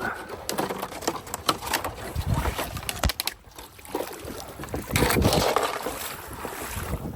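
Irregular water splashing and sloshing, with wind buffeting the microphone; louder for a moment about five seconds in.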